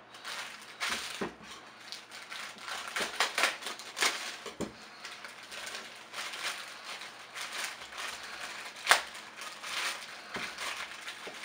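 Plastic packaging crinkling and rustling as the parts of a PVC figure are unwrapped by hand, with scattered small clicks and light knocks; one sharper click about nine seconds in.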